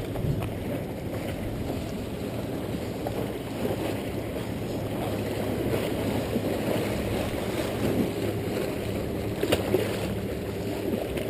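Seawater lapping and sloshing against jetty rocks, with wind on the microphone. About nine and a half seconds in there is a sharp splash as a hooked bluefish thrashes at the surface.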